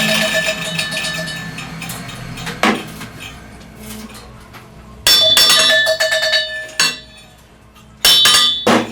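Hammer blows on a steel truck rim, each strike followed by a bright metallic ring. There are about six blows, irregularly spaced, with two close together near the end.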